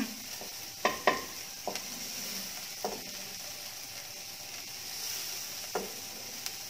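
Diced onion and garlic sizzling in a nonstick wok, with a black plastic spatula tapping and scraping against the pan a handful of times as they are stirred, mostly in the first three seconds.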